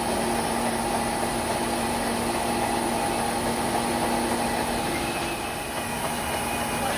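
Electric tool-post grinder mounted on a lathe, its wheel grinding a hydraulic pump part as the part turns in the chuck: a steady motor hum with a few held tones over an even grinding hiss.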